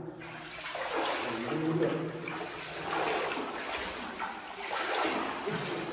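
Shallow water sloshing and splashing as people wade through it, a surge with each stride about once a second.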